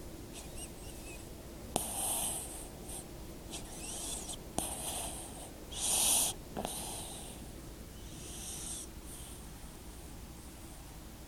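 Snoring in sleep: a run of short, wheezy, breathy snores about a second apart, with a faint whistle in some breaths and a few sharp clicks. The loudest snore comes about six seconds in.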